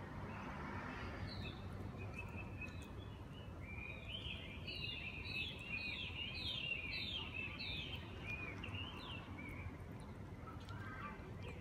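A bird singing a run of short, quickly repeated chirping notes from about four to nine seconds in, over a steady low background rumble.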